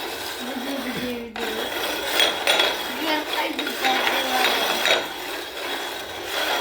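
Hard objects clinking and clattering on a table as they are shuffled around, with many short knocks.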